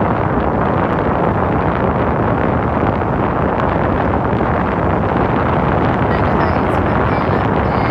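Loud, steady road and wind noise inside the cabin of a car driving at speed.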